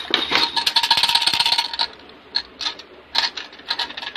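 Plastic baby rattle being shaken, a quick run of jingling rattles with a faint ringing for about two seconds, then a few separate shakes.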